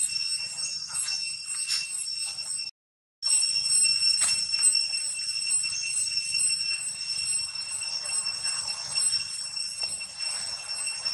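Steady, high-pitched insect drone, like a cicada chorus, with a faint rapid flutter. It cuts out for about half a second near three seconds in, then carries on.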